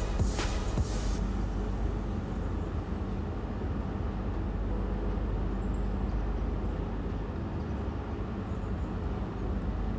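A few short sharp sounds in the first second, then a steady low rumbling hum that runs unchanged.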